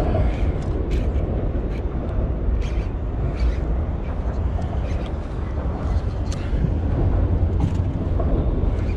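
Steady wind rumble on the action-camera microphone, with scattered light clicks from the baitcasting reel as line is worked in on a hooked fish.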